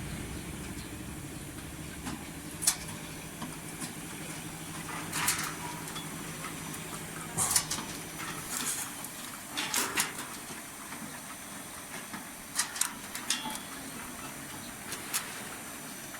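A steady low machine hum that fades out about seven seconds in, with scattered sharp clicks and short hissing bursts throughout.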